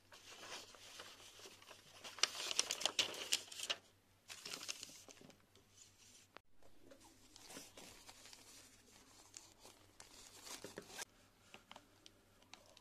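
Paper instruction leaflet and thin plastic packaging from a foam hair-dye kit being handled, crinkling and rustling. The densest crinkling comes in the first four seconds, followed by lighter scattered rustles and small taps.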